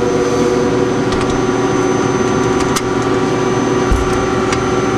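Steady, loud hum of a powered-up Okuma LB-25C CNC lathe, from its motors and cabinet equipment, with several fixed tones. A few light clicks and a low bump near the end come from a hand at the cabinet door's latch.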